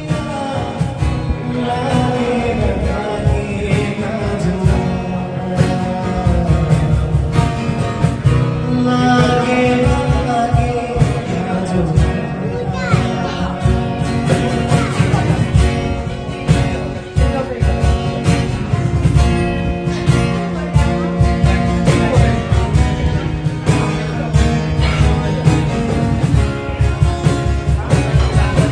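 Live band performing: a man singing into a microphone over guitar and a steady beat.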